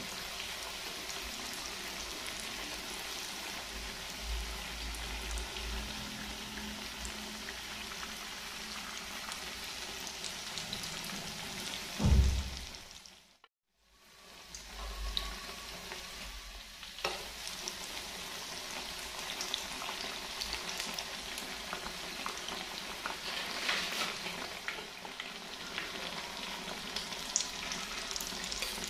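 Food sizzling and crackling as it fries in hot cooking oil. There is a loud low thump about twelve seconds in, then a moment of silence before the frying sound resumes.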